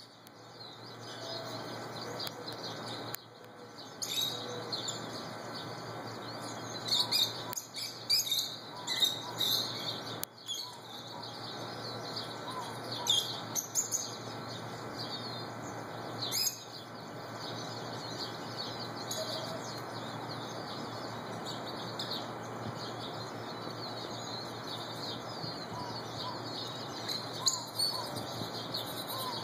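Rosy-faced lovebirds chirping in short high calls, coming in bunches, busiest in the first half and again near the end. A low steady hum runs underneath.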